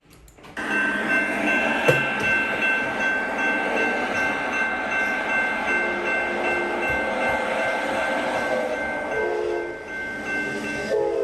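Amtrak train hauled by a P42DC diesel locomotive passing. A steady high-pitched ringing runs from about half a second in, and the horn sounds in blasts toward the end, its pitch sliding down as the train goes by.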